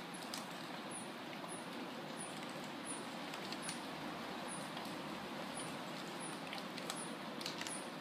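Mango tree leaves rustling in the wind, a steady soft hiss with scattered small ticks. A faint high chirp repeats about every half second.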